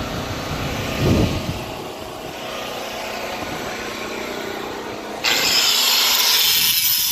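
A power saw starts abruptly about five seconds in and runs loudly with a harsh high hiss, cutting off a nail that blocks a fence board. Before it starts there is only a steadier, quieter background noise.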